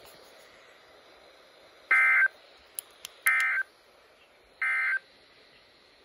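NOAA Weather Radio receiver sounding the EAS end-of-message signal: three short, buzzy bursts of SAME digital data, each about a third of a second long and roughly a second and a half apart, the first about two seconds in. They mark the end of the special marine warning broadcast.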